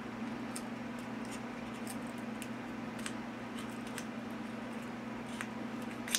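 Small knife blade cutting and scraping the shaft of a feather quill, giving irregular small ticks and clicks as the nib is shaped; the sharpest click comes near the end. A steady low hum runs underneath.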